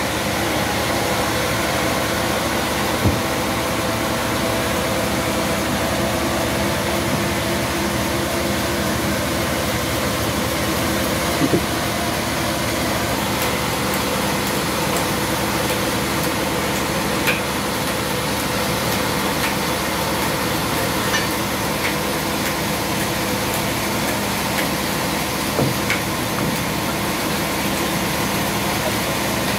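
Sawmill's stationary engine running steadily, driving the band saw line while no cut is being made, with a few scattered knocks.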